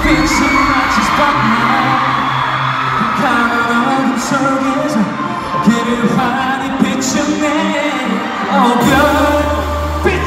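Live K-pop song performed by a male idol group: a male voice sings over a pop backing track. The deep bass drops out about three seconds in and comes back strongly near the end.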